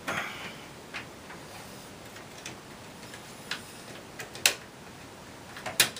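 Scattered light clicks and taps of a plastic SSD tray being pushed and wiggled into its slot in the steel SSD bay of a PC tower case, about five in all, the two sharpest near the end.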